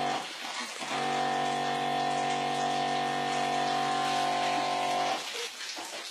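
Electric pump of a needle injector running with a steady hum while it pumps liquid into raw chicken meat; it stops just after the start, restarts about a second in, and cuts off about five seconds in.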